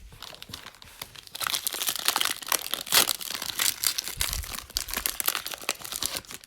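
Wrapper of a Prizm football card pack being torn open and crinkled, a dense crackling that gets louder about a second in.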